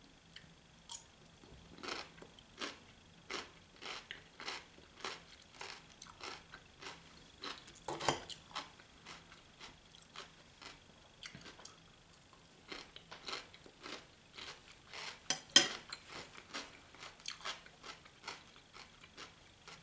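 A person chewing food with the mouth close to the microphone: a steady run of crunchy chews, about two a second, with louder crunches about eight and fifteen seconds in.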